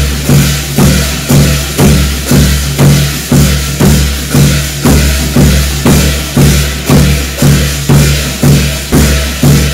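Percussion accompaniment of a Korean shamanic gut ritual: a steady beat of heavy drum strikes, about two a second, each ringing on low.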